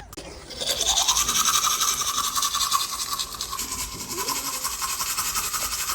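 Quick, rhythmic scrubbing strokes, a brush or hands worked fast back and forth, starting about a second in and running steadily.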